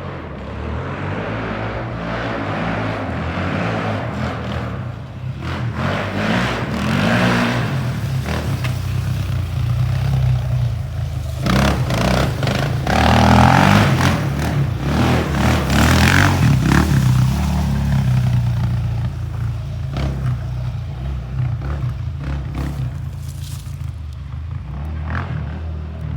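Honda TRX400EX ATV's single-cylinder four-stroke engine running and being revved repeatedly, with several surges in the middle before it eases back down near the end.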